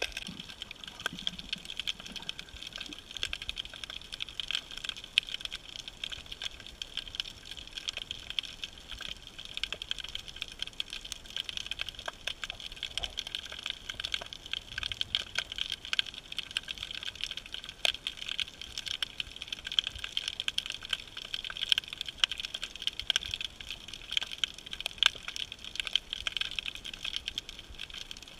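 Dense, steady crackling of countless tiny sharp clicks heard underwater on a rocky reef, the crackle typical of snapping shrimp.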